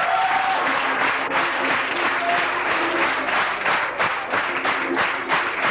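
Audience applauding: dense clapping from many hands, turning into more distinct separate claps near the end.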